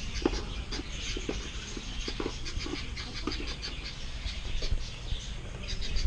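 Many small caged birds chirping and twittering in quick, overlapping high notes, over a steady low store hum, with scattered low knocks.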